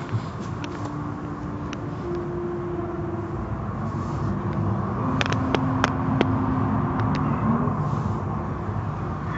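Soft-cloth automatic car wash heard from inside the car: a steady rush of water spray and cloth strips scrubbing over the body, with machinery hum and a few sharp knocks about five to six seconds in.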